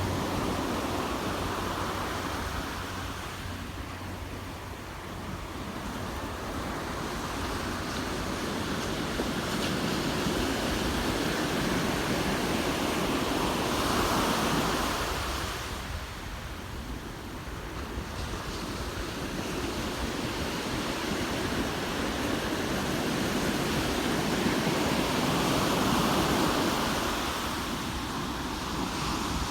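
Ocean surf breaking and washing up a sandy beach, swelling and fading in slow surges roughly every twelve seconds.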